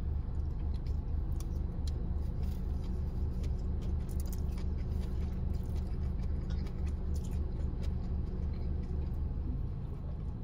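Steady low rumble of a car idling, heard from inside the cabin, with faint clicks and chewing from eating noodles with a plastic fork.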